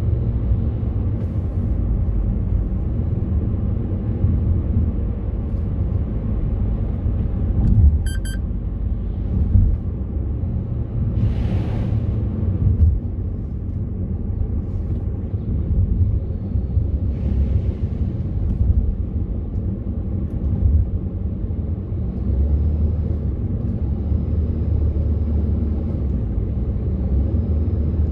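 Steady low road and engine rumble inside a moving car's cabin. A brief high beep comes about eight seconds in, and a short whoosh about twelve seconds in.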